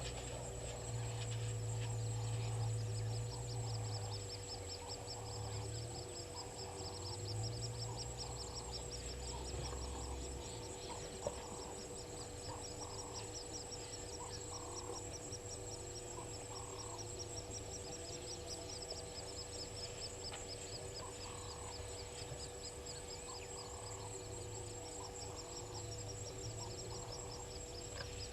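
Bushveld waterhole ambience: birds giving short calls over and over above a steady, high insect buzz. A low rumble runs under it for the first ten seconds or so.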